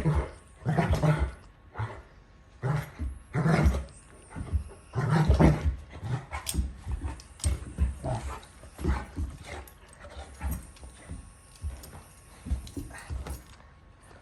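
Dogs play-fighting, growling in irregular bursts. The bursts are loudest and longest in the first six seconds, then come shorter and quieter.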